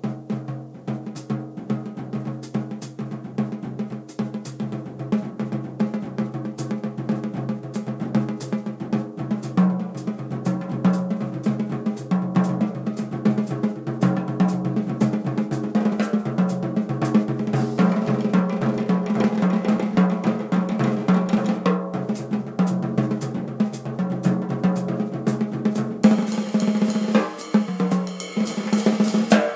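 Drum solo on a Yamaha Phoenix bop kit (small 18-inch bass drum, 12-inch and 14-inch toms) with a Sonor Delite snare: dense, rapid stick strokes and rolls across snare and toms, the tuned drums ringing. Near the end cymbals come in with a bright wash.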